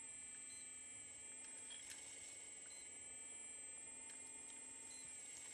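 Kabolite K970 RC hydraulic excavator's hydraulic pump running with a faint, steady high whine as the arm and bucket move, with a few light clicks.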